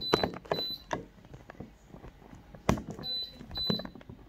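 Heat press ready alarm beeping in pairs of short high beeps, twice: once at the start and again about three seconds in. Signals that the press has reached temperature. Handling clicks and knocks sound around it, the loudest a sharp knock a little before the second pair of beeps.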